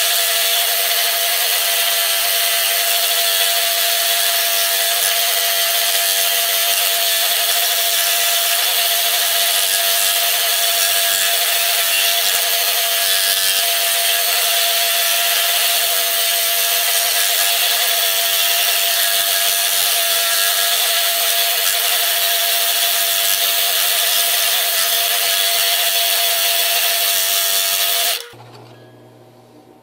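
Scroll saw running steadily while cutting through wood, a continuous buzz with a steady whine, then switched off near the end so that the sound cuts off suddenly.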